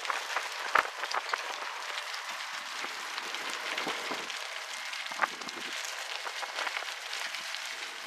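Wind and road noise of a moving vehicle: a steady rush with a dense crackle running through it, and a couple of sharper clicks, one about a second in and one about five seconds in.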